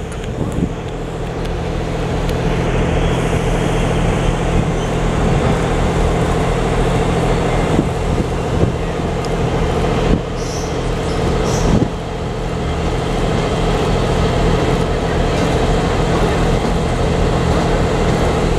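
Diesel locomotive engine running steadily as the locomotive approaches slowly, getting a little louder over the first few seconds, with a few faint knocks.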